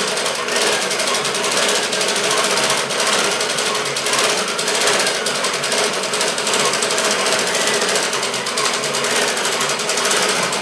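Sewing machine head on a DIY CNC quilting frame, stitching steadily at speed with a fast, even needle rattle as the frame guides it through the pattern.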